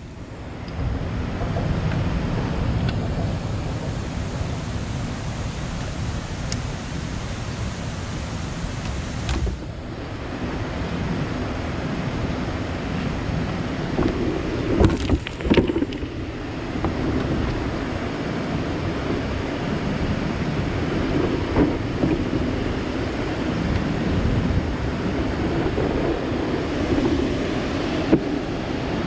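Steady rushing noise of wind buffeting an action camera's microphone, with a few knocks from the kayak and paddle being handled, the loudest about halfway through.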